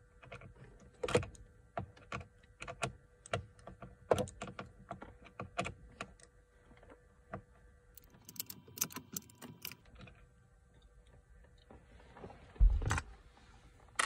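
Irregular light clicks and taps of a Torx screwdriver turning the T27 bolt that holds the steering-wheel airbag, the metal bit working in the bolt head. A louder knock comes near the end.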